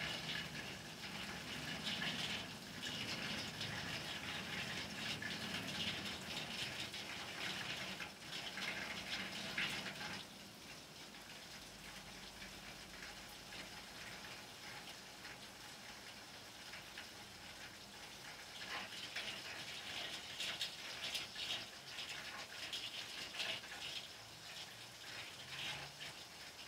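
Steady rain falling on flat rooftops, a hiss of drops. It is heavier for about the first ten seconds, eases off, then picks up again around twenty seconds in.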